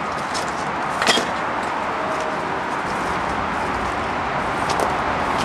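Steady rushing noise of highway traffic, with scattered crackles of footsteps through tall weeds and a sharper snap about a second in.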